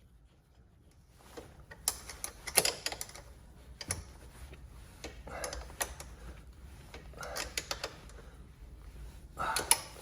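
Irregular clusters of sharp metallic clicks and knocks from hand tools and parts being worked on a motorcycle, starting after about a second of near quiet.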